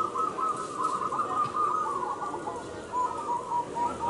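A chorus of many caged zebra doves (perkutut) cooing at once, their coos overlapping without a break, with a run of short evenly spaced notes standing out about three seconds in.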